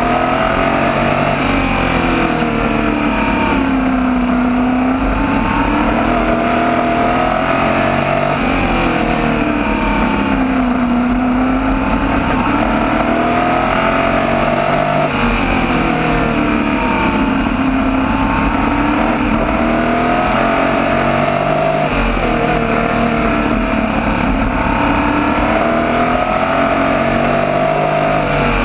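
Open-wheel race car's engine at racing speed, heard from on board. Its pitch drops and climbs again in a regular cycle about every six seconds as it laps a small oval.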